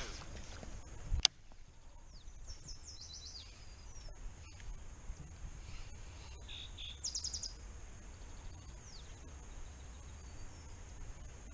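Songbird calling from the shoreline: two quick runs of short, falling, high chirps, with a few single chirps between. There is a sharp click about a second in, and a steady low rumble underneath.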